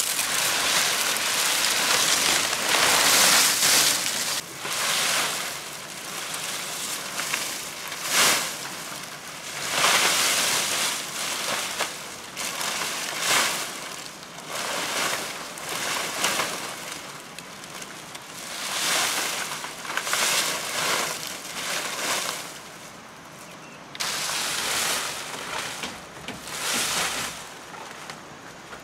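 Palm leaves rustling and swishing as bundles of fronds are dragged and laid onto a bamboo roof frame, in repeated surges a second or two long.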